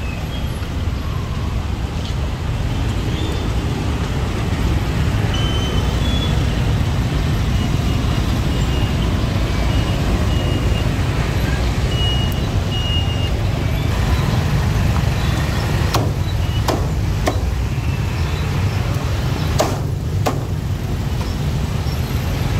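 A cleaver chopping roast pork on a thick wooden chopping block, a handful of sharp knocks in the second half, over a steady low rumble of street traffic.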